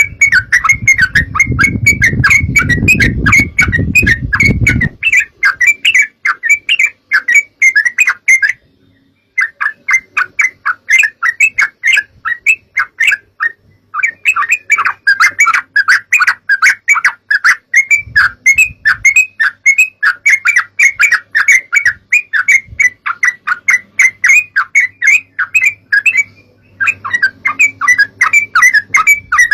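Trucukan (yellow-vented bulbuls) chattering and singing without let-up in rapid, repeated bright notes, broken by a few short pauses. A low rumble runs under the first five seconds.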